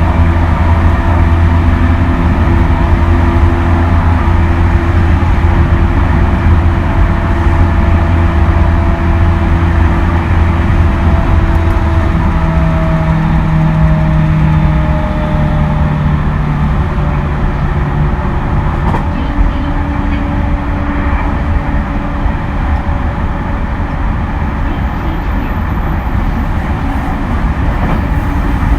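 JR East E231 series electric train running on the line: wheels and rails rumble under the steady hum of the traction motors and inverter. The motor tones slide lower and change partway through, and the whole sound eases off slightly after that.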